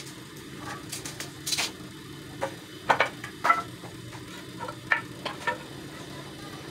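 Wooden planks knocking against each other and the ground as they are moved and laid out by hand: a series of light knocks and clacks, the sharpest about three seconds in, over a steady low background hum.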